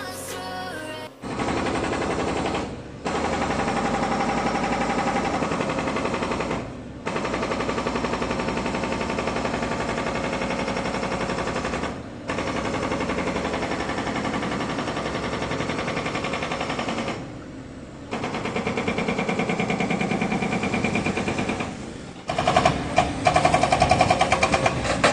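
Hydraulic breaker on a Caterpillar 307 excavator hammering: rapid repeated blows in runs of several seconds, separated by short pauses, with a louder run near the end.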